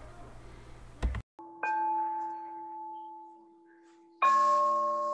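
A click about a second in, then a meditation chime struck and ringing as it slowly fades. It is struck again, louder and deeper, about four seconds in, and rings on.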